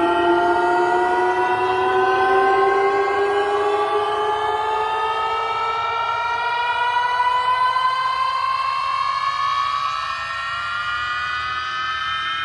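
Xdobo BMTL Boss Bluetooth speaker playing a long electronic tone, several pitches sounding together, that rises slowly and steadily in pitch, easing a little in loudness near the end.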